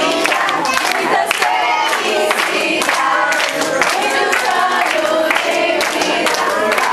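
A crowd of party guests singing and shouting together, with hand-clapping: typical of a birthday song sung around the cake.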